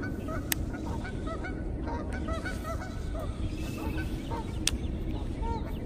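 Geese honking repeatedly, many short calls overlapping. There are two sharp clicks, one about half a second in and one near the end.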